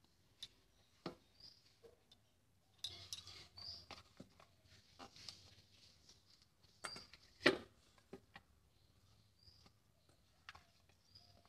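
Faint, irregular squishing and pattering of a hand kneading flour and water into a dough in a stainless steel bowl, with scattered light clicks and a sharper knock about seven and a half seconds in.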